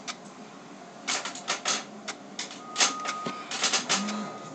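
Quick clusters of sharp clicks and taps from small hard parts being picked up and set down on a tabletop, with the loudest taps about a second and three seconds in.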